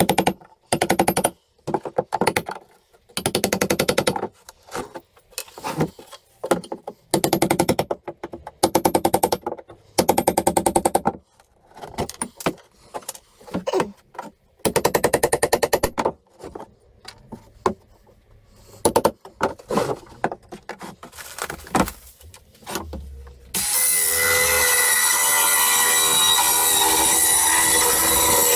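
A claw hammer rapidly tapping a steel nail puller in short, repeated bursts of metal-on-metal strikes, driving its claws under nail heads in pallet boards, with scattered clicks and knocks between. About 23 seconds in, a cordless circular saw starts and runs steadily, cutting across the softwood pallet boards.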